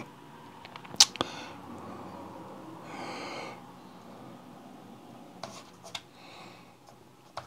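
A few small clicks and taps of hands on the opened laptop and desk, the loudest a sharp click about a second in followed by a smaller one, with a short breath around three seconds in and faint clicks near the end.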